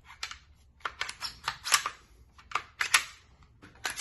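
FN Five-seveN pistol's steel slide and polymer frame clicking and clacking as they are worked together by hand during reassembly: an irregular run of sharp clicks, the loudest a little before the middle and about three seconds in.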